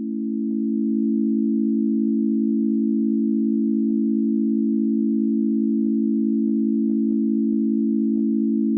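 Civil-defence sirens sounding one steady, unchanging tone for a monthly test, fading in over the first second or so. An electronic siren and an E57 motor siren sound together, and the tone wavers slightly and regularly.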